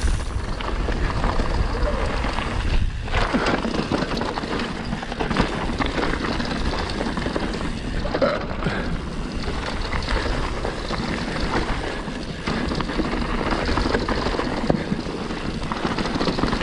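Mountain bike riding down a dirt trail: tyres rolling over rough ground and the bike rattling with frequent knocks over bumps, over a steady low wind rumble on the microphone.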